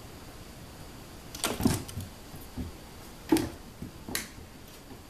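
About five sharp taps and knocks on a hardwood floor during cat play with a wand toy, the loudest about one and a half and three and a half seconds in.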